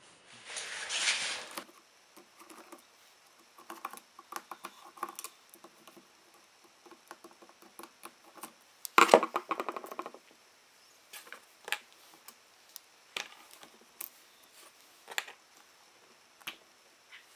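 Light, scattered clicks and taps of small parts and a hand tool being handled while a jet ski carburetor is taken apart, with a short rustle at the start and a louder clatter about nine seconds in.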